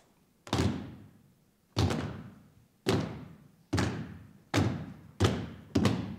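A series of about eight heavy thuds, each dying away over about a second with a long echo. They come faster and faster, quickening into a rapid flurry near the end.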